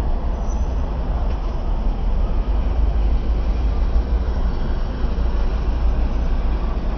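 Steady road traffic noise from a busy multi-lane road: a continuous low rumble of many cars and trucks together, with no single vehicle standing out.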